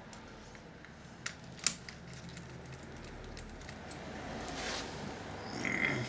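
A screwdriver working screws out of the plastic chassis of a radio cassette recorder: a few sharp clicks about a second and a half in, then light ticks and scraping.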